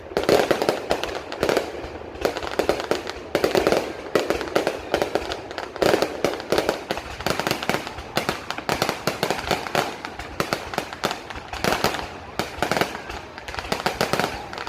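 Fireworks display: a dense, unbroken run of bangs and crackles, several a second, with louder clusters every few seconds.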